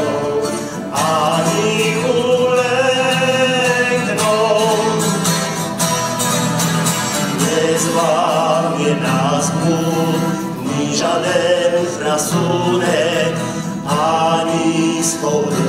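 A man singing a Polish song to acoustic guitar accompaniment.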